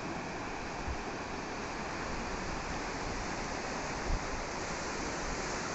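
Waves washing steadily onto a sandy beach, with two brief low thumps, the second and louder one near the end.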